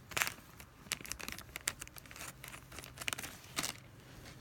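A Happy Meal toy's plastic wrapper being crinkled and torn open by hand, in irregular short crackles.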